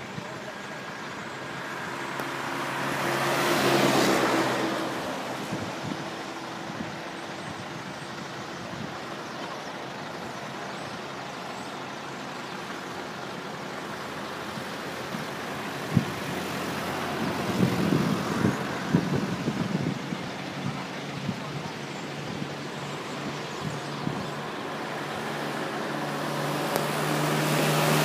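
Road traffic noise: a steady rush of engines and tyres, with a vehicle passing about four seconds in and another one swelling up near the end.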